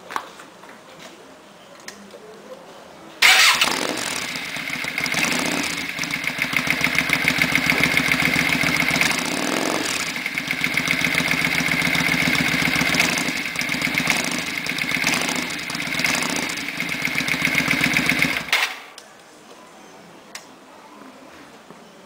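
Yamaha Virago 535's air-cooled V-twin, breathing through an open Roncar sport exhaust with the baffles out, starts about three seconds in. It runs loud, is revved up in repeated swells, and cuts off abruptly near the end.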